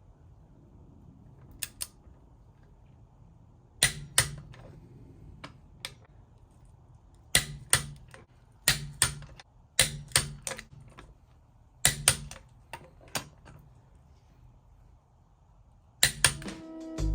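Sharp metallic clicks in short groups of two or three, a few seconds apart, from a ratchet wrench worked in short strokes to snug a wheel's lug bolts before they are torqued. Music starts near the end.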